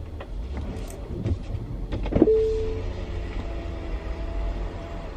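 Car's power window motor running as the driver's window is lowered, a steady whine that starts about two seconds in and lasts about three seconds, over a low rumble inside the car.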